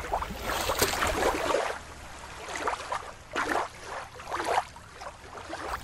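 Shallow water lapping and washing against a rocky shoreline. After about a second and a half it gives way to a quieter background with a few short swells of sound.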